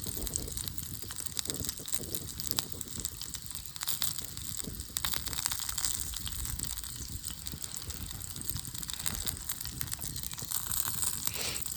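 Wood campfire crackling, with many small sharp pops and snaps over a steady rushing noise.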